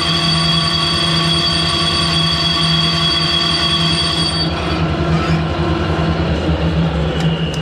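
Harrison lathe running steadily, turning a cylinder-cover casting under the cutting tool, with a steady high whine over its drive noise. About four and a half seconds in the high whine dies away while the lathe keeps running.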